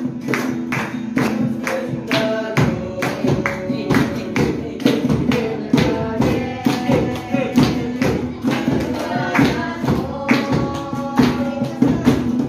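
Acoustic guitar strummed in a steady, lively rhythm, with a group of voices singing along and a sharp percussive beat on the strokes.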